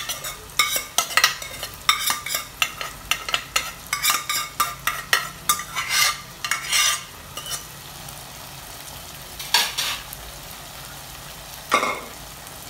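Steel spoon scraping and knocking cooked minced mutton out of a non-stick pot into a frying pan: a dense run of scrapes and taps for about seven seconds, then two single clunks near the end, over a low sizzle from the pan.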